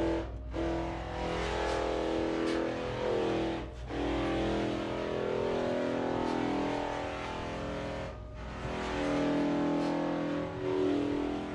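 Background music with sustained chords that change every few seconds, broken by brief gaps about three times.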